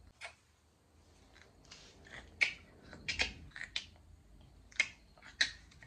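Irregular sharp clicks and taps of a Canon camera body being handled, its plastic parts and fittings clicking under the fingers.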